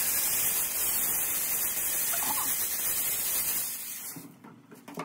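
Water jet from a hand-held spray nozzle hitting a screen-printing frame, a steady hiss, washing out the exposed photo emulsion to develop the stencil. The spray stops about four seconds in.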